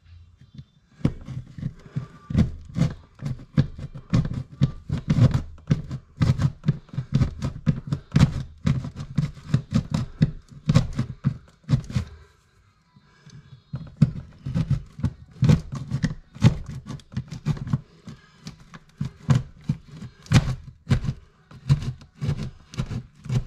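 A hand tool sawing through thin 3/8-inch drywall with rapid strokes, about four a second, pausing briefly about halfway, to cut out a hole for an electrical box.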